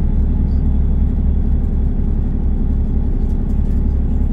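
Diesel passenger train running along the line, a steady low rumble of engine and wheels.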